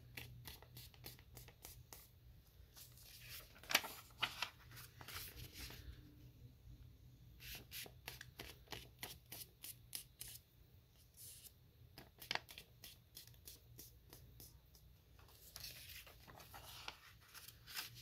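Sheets of one-sided origami paper being handled, folded in half diagonally and creased by hand: faint, irregular rustling and crinkling with many short crackles.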